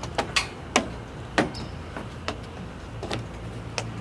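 Footsteps and knocks on the steps of a playground climbing structure as someone climbs: about seven irregular sharp thuds over a steady low rumble.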